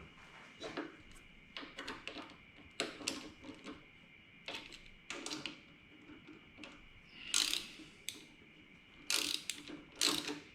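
Ratchet wrench clicking in short, irregular bursts as screws are tightened, with pauses between strokes.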